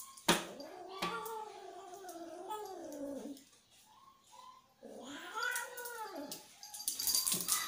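A cat yowling in long, wavering, drawn-out calls while a dog paws and mouths it in rough play. The first call lasts about three seconds and a second, rising-then-falling call comes about a second later. Scratchy clicks and scuffling follow near the end.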